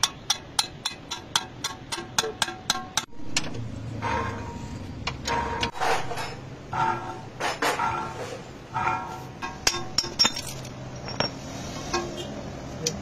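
Steel hammer striking a steel sleeve to drive a wheel bearing onto a car's hub: rapid, even blows about four a second. After about three seconds they give way to slower, ringing metal knocks and clinks.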